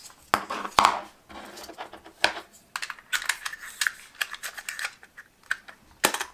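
Small plastic clicks, knocks and rustles as a 35mm film cartridge is seated in an Olympus Mju-I's open film chamber and the leader pressed into place, with two sharp clicks near the end as the plastic back is closed.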